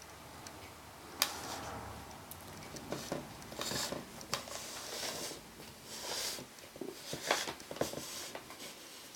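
Handling noises from the clock being turned and moved about: a sharp click about a second in, then scattered light clicks, taps and rustling.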